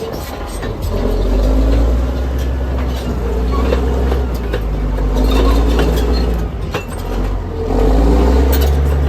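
Heavy diesel engine, most likely the bulldozer's, running and revving in repeated surges, with a few short sharp knocks.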